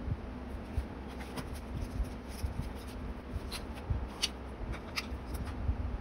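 Paper rustling as hands handle and lift the pages of a notebook, soft irregular rustles with a few crisp paper clicks about halfway through.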